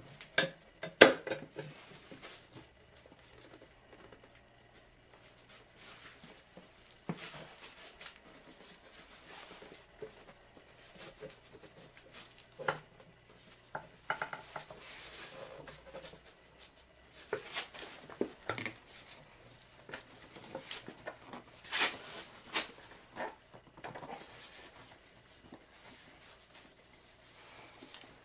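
Irregular handling noises of a small mower tire being worked by hand on its steel wheel rim: knocks, scrapes and rubbing of rubber against metal, the loudest a sharp knock about a second in.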